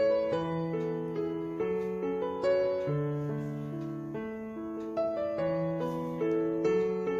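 Background music: soft piano or electric piano playing slow, gentle chords and melody notes.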